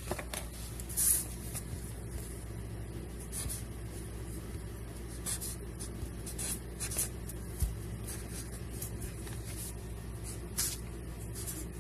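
Pen scratching on paper in short, irregular strokes as a question is written, over a steady low hum.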